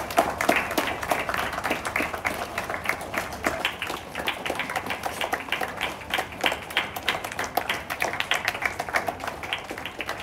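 A line of schoolchildren applauding, a steady run of many overlapping handclaps.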